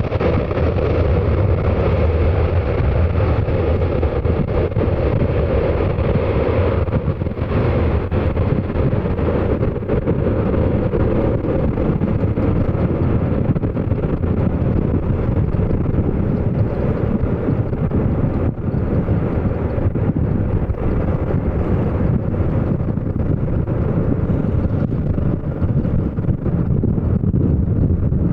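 Steady, loud jet aircraft engine noise, its higher hiss slowly fading over the course of the sound, with wind buffeting the microphone.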